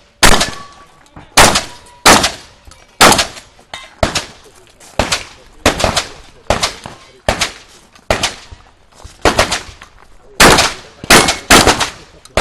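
Shotgun fired in a rapid string of shots, about one and a half a second with a few short pauses, each shot tailing off briefly.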